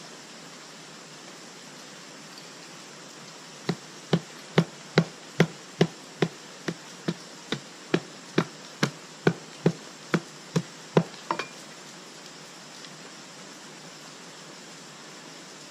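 A hand-held stone striking a piece of wood in a steady run of about twenty sharp knocks, roughly two a second, starting about four seconds in and stopping about seven seconds later.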